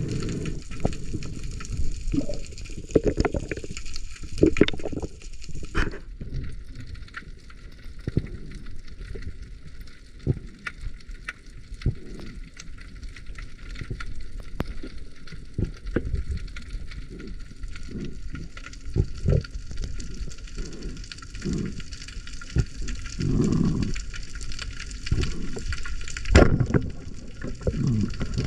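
Muffled water sloshing and gurgling around a swimming spearfisher, with scattered knocks and bumps.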